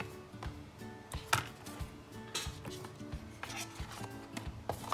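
Cardboard phone box and its inner tray being handled and closed up, with a few light knocks and scrapes, over soft background music.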